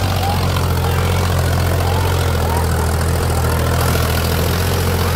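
Diesel engine of a Powertrac Euro farm tractor running steadily under load as it pulls a loaded trolley through deep paddy-field mud.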